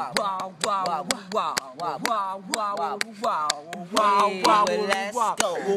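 Music playing: a vocal line over a beat with frequent sharp percussion hits.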